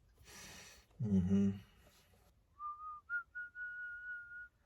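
A man gives a short voiced grunt, then whistles idly: a short note, a quick blip, and one long held high note.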